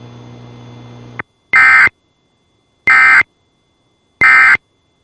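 Three identical short Emergency Alert System SAME digital data bursts, harsh buzzy chirps about a third of a second each and about 1.3 s apart. Bursts this short are the end-of-message code that closes an alert test. A faint low hum stops about a second in, just before the first burst.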